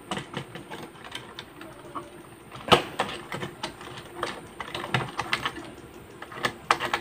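Irregular small clicks, taps and scrapes of a wire being worked into a brass screw terminal on a plastic switchboard, with one sharper click a little under three seconds in.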